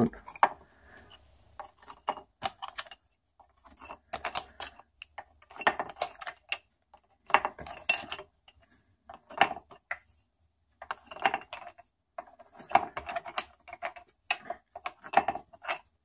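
Wooden dowel sticks clicking and clattering against each other and the wooden board as they are picked from a pile and dropped one at a time into drilled holes, a short cluster of knocks every second or two.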